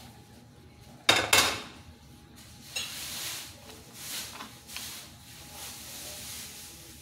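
Metal utensils clattering and scraping against a ceramic plate as food is spooned onto it: a loud double clatter about a second in, then a few lighter clinks.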